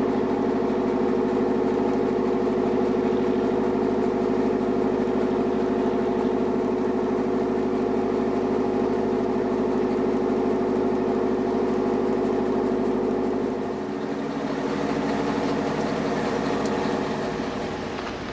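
Engine of a mowing-and-collecting boat (aquatic weed harvester) running steadily while its conveyor carries cut weeds: an even mechanical hum with a held tone. It dips a little and changes character about fourteen seconds in.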